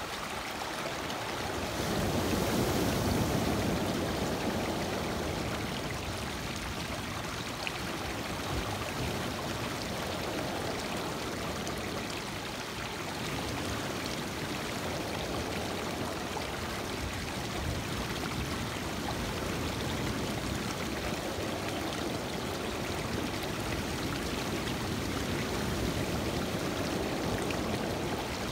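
Lake waves washing in over a rocky shore, water rushing and trickling among the stones without a break, swelling louder a couple of seconds in.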